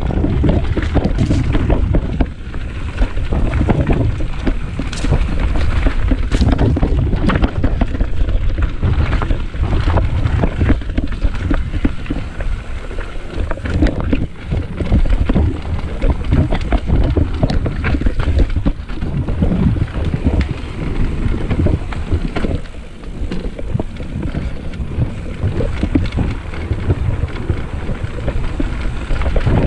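Mountain bike riding down dirt singletrack: wind rumbling over the microphone, with a steady stream of rattles and knocks from the bike and tyres going over the rough trail.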